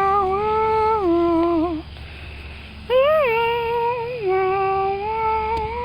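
A high young voice humming a tune in long held notes that step up and down in pitch. There are two phrases, with a short break just under two seconds in.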